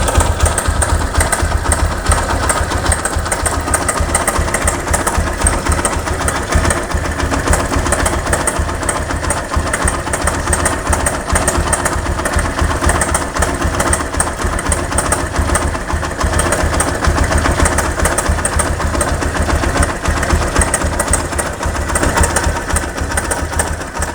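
Honda Megapro Primus single-cylinder engine running steadily with a rough, rapid clatter from the top end. This is the noise typical of a worn or slack cam chain tensioner letting the cam chain slap.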